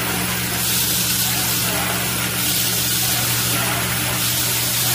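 Vibratory bowl feeder and belt conveyor running, with a steady electric hum and the small metal parts rattling along. Over it is a loud hiss, like compressed air, that swells and eases every second or so.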